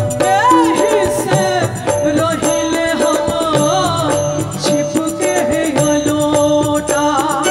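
Female vocalist singing a Bhojpuri folk song live into a microphone, backed by a band with a steady, quick percussion rhythm.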